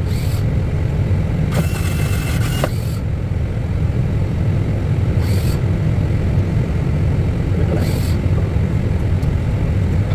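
Airbus A320 cockpit noise while taxiing: a steady low rumble from the idling engines and rolling aircraft. Short high hisses recur every couple of seconds, and a louder rushing burst lasts about a second, starting about one and a half seconds in.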